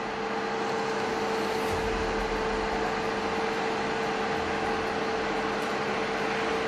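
Steady rushing noise with a constant machine hum, as of a fire engine running at the scene of a burning airliner.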